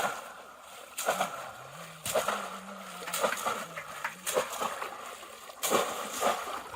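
Water splashing in short, sudden bursts about once a second, from hands and bodies moving through shallow water while fishing by hand.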